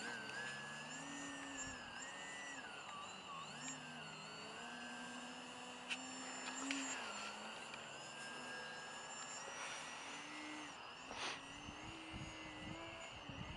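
Motor and propeller of a foam delta-wing RC plane droning in flight, its pitch rising and falling as the throttle and distance change. A steady high tone runs underneath.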